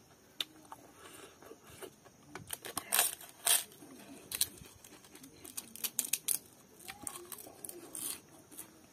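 Crisp fried papad cracking and crunching as it is snapped apart by hand and chewed: a run of sharp crackles, loudest about three seconds in, with scattered smaller crunches after.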